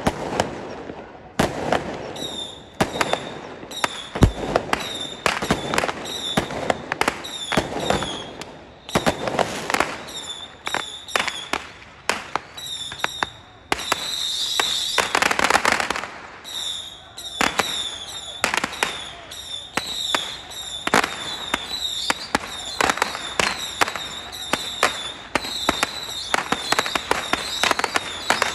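Firecrackers going off in a long irregular series of sharp bangs, at times several a second, each with a short high ring. A dense, almost continuous crackle comes about halfway through.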